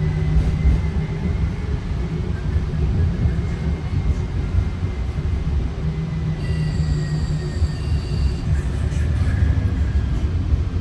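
TriMet MAX light rail train running on its track: a steady low rumble with a faint thin whine above it. For about two seconds past the middle, a few high steady tones sound over it.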